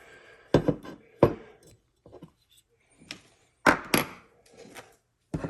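Parts and tools being handled during AR-15 lower receiver assembly. There are several sharp knocks and clicks: two about a second in, a louder cluster a little before four seconds in, and one more near the end, with soft rustling between them.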